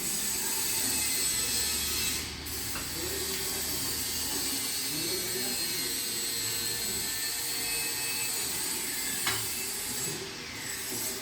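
A small electric motor running steadily with a whir. It dips briefly about two seconds in, and there is a single sharp click near the end.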